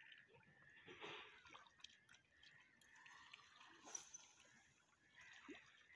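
Near silence, with faint lapping and dripping of water at the shoreline.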